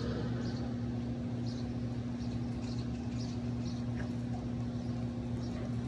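Steady low electrical hum, with faint short high squeaks repeating about twice a second.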